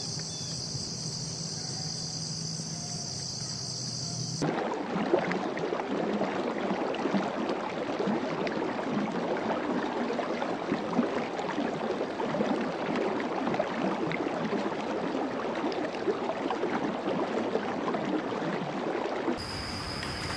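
A steady high-pitched insect chorus, cut off about four seconds in by the splashing and churning of water as a tiger swims, a dense crackling wash that is the loudest part. Near the end the water stops and a steady high insect buzz returns.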